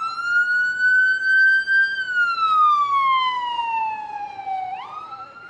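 Ambulance siren in a slow wail. The pitch sweeps up quickly, climbs slowly, then falls over about three seconds before sweeping up again near the end. It gets quieter over the last second or so as the vehicle moves off.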